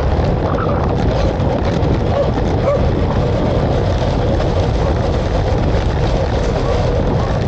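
Steady loud rumble of wind and travel noise on the microphone, with a few faint short high yelps in the first three seconds.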